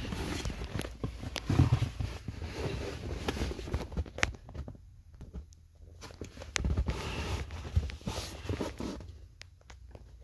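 Handling noise of a phone held by someone shifting about on leather car seats: irregular rustling, scraping and soft thumps with scattered clicks. It goes quieter for a moment about halfway through and again near the end.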